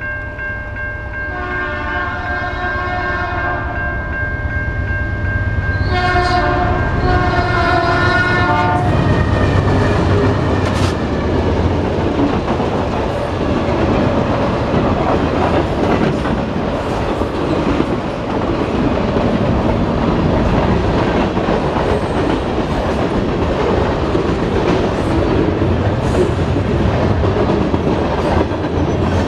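A CN freight train's locomotive horn sounds two long blasts while the crossing bell rings steadily. Then the train rolls through the level crossing: a steady rumble of freight cars, with the wheels clacking over the rail joints.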